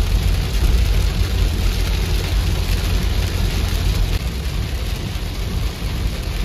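Heavy rain on a moving car heard from inside the cabin, a steady rush over the low rumble of the engine and tyres on the wet road.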